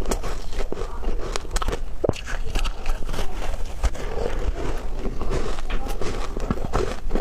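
Close-miked bites into soft, squeaky frozen ice, crunching and crackling in quick, irregular succession several times a second.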